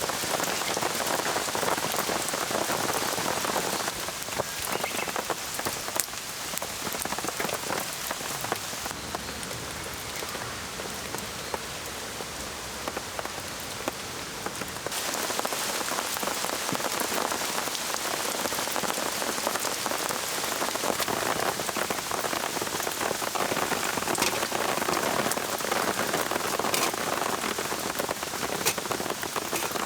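Steady rain falling, with single drops tapping close by now and then; it drops to a softer hiss at about 4 seconds in and again from about 9 to 15 seconds before returning.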